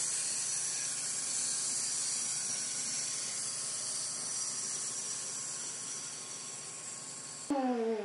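A small toy motor whirring steadily, slowly getting quieter, and cutting off sharply near the end.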